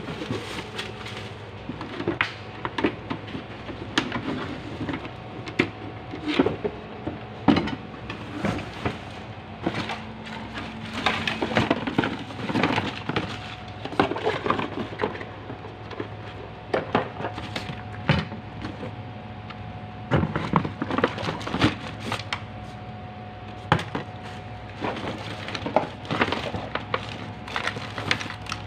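Discarded household items being rummaged through and shifted by hand: irregular knocks, clatters and rustling of plastic bags and wood, over a steady low hum.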